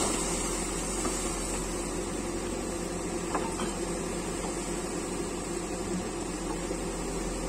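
Backhoe loader's diesel engine running steadily under work, with a few faint knocks a little over three seconds in.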